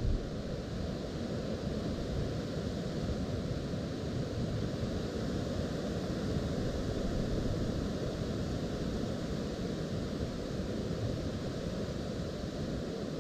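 Strong wind buffeting the microphone: a steady low rumbling noise, with a brief louder bump right at the start.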